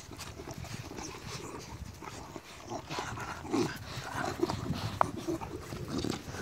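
American Staffordshire terrier puppies making short low grunting sounds while mouthing and nuzzling at a hand, with a sharp click about five seconds in.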